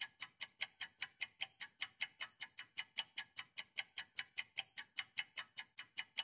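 Fast clock-ticking sound effect: sharp, even ticks at about five a second, keeping a steady beat.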